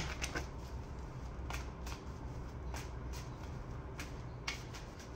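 A tarot deck being shuffled by hand: soft, irregular flicks and slaps of cards against each other, about a dozen over a few seconds.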